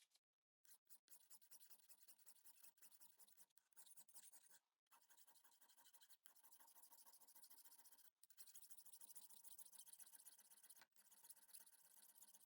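Faint, steady scratchy rubbing by hand, like sanding or scrubbing a surface, with a few brief dropouts.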